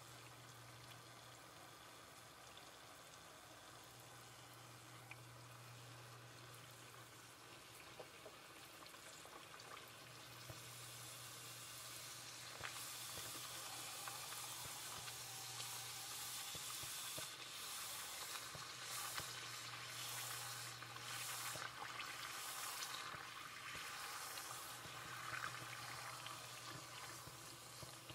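Bánh tiêu dough deep-frying in hot oil: a faint sizzle that grows louder about ten seconds in, with surges of crackling later, as fresh pieces of dough bubble and puff up.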